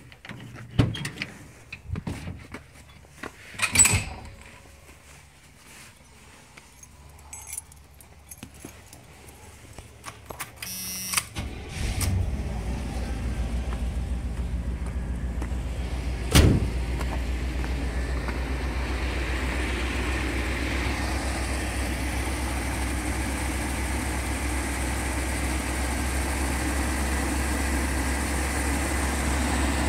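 Footsteps crunching on icy gravel and a jingle of keys. About eleven seconds in, the short school bus's engine starts and then idles steadily with a low hum, with one sharp knock a few seconds later.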